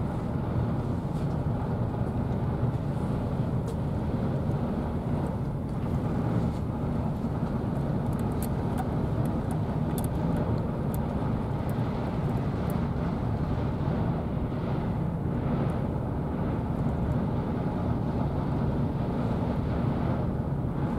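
Steady low rumble of outdoor background noise, with a few faint ticks around the middle.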